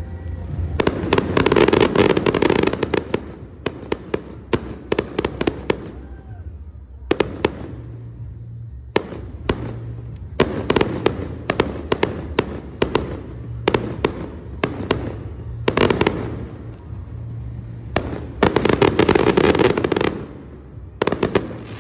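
Aerial fireworks going off: sharp bangs of bursting shells, one after another, with spells of dense rapid crackling near the start, about two thirds of the way through and near the end, over a low rumble.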